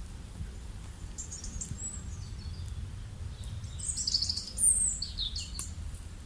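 Small birds chirping in quick, high notes, some sliding in pitch, in two bursts, the second and loudest about four to five seconds in, over a steady low rumble.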